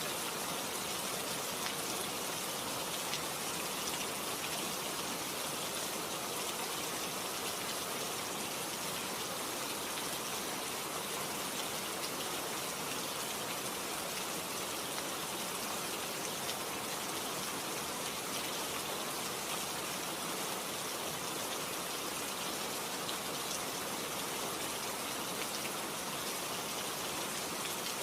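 Steady rain falling, a dense even hiss of drops with fine scattered patter.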